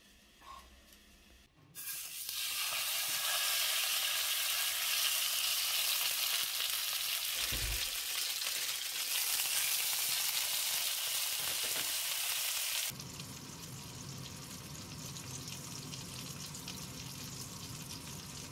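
Hanwoo striploin steak sizzling loudly as it sears in a hot frying pan, with one dull knock partway through. Near the end the sizzle turns softer and lower as butter foams around the steak to finish it.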